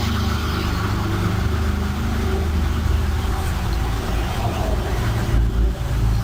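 Road traffic, vehicles running on nearby roads, picked up as a steady low rumble and hiss by a microphone with its recording level turned up to full.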